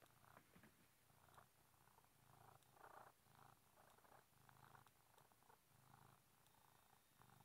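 Domestic cat purring softly and steadily close to the microphone, the purr swelling and easing with each breath in a regular rhythm.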